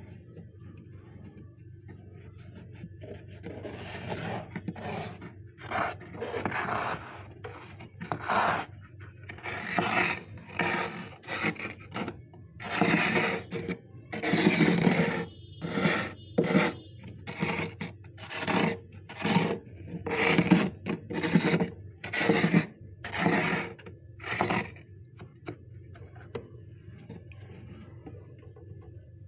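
Thick, powdery freezer frost being scraped by hand with a small tool: a run of rough scraping strokes, about one a second, starting a few seconds in and stopping a few seconds before the end.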